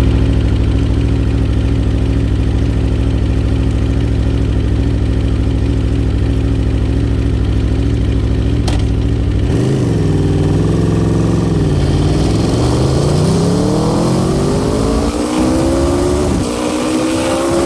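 Aprilia RSV4 RR's V4 engine idling steadily, then a click about halfway through, after which the revs are raised and climb smoothly for several seconds before dropping back and holding at a higher speed.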